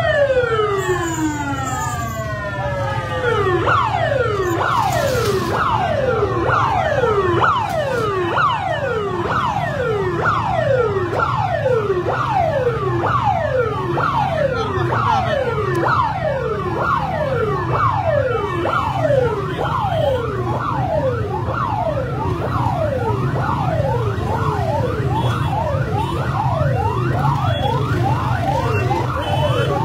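Rescue 1122 ambulance siren: one long falling wail, then a fast repeating cycle of falling sweeps, about one every three-quarters of a second, over a low steady rumble.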